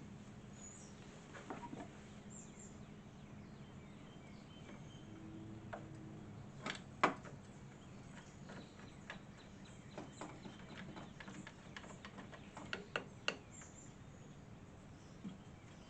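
Scattered light clicks, clinks and knocks of metal saw parts and hand tools being handled during reassembly. The sharpest knock comes about halfway through and a quick cluster of clicks follows near the end, over a faint steady hum.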